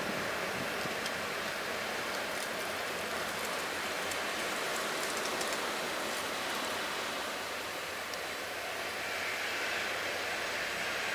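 Steady rushing noise, an even hiss with no distinct events.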